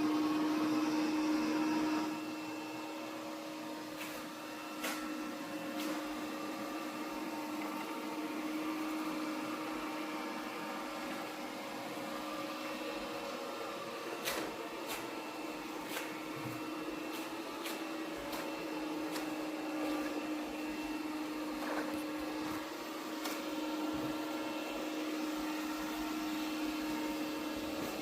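Cuckoo Powerclone robot vacuum running while cleaning the floor: a steady motor hum with a whine, louder for the first two seconds and then settling lower, with scattered sharp clicks and taps as it works.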